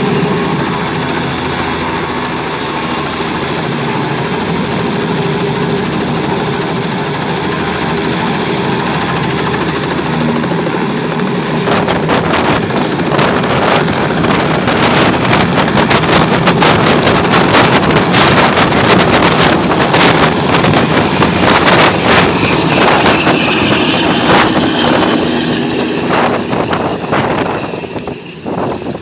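Robinson R66 turbine helicopter running on the ground with its rotor turning, a steady whine. About twelve seconds in it grows louder and choppier as power comes up for take-off, then fades near the end as it climbs away.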